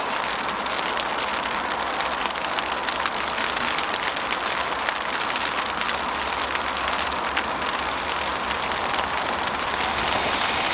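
Rain falling on an umbrella held close overhead: a steady hiss dotted with many small ticks of drops.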